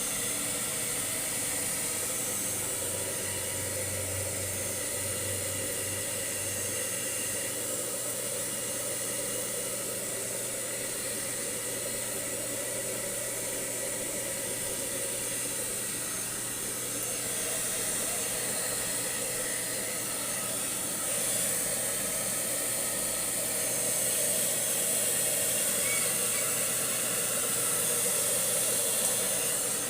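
Electric blow dryer running steadily, a constant hiss that gets a little louder in the last third.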